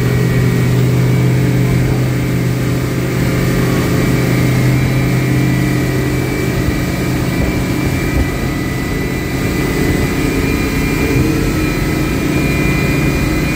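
OXE300 diesel outboard running steadily under way, a low engine tone with its harmonics, over the rushing of the boat's wake.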